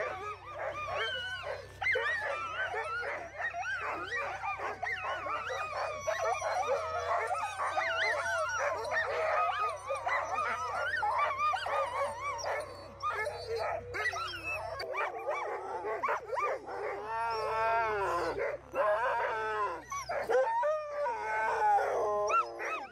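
A team of harnessed sled dogs howling and yelping together, many voices overlapping without a break: the eager din of dogs waiting on the line to run.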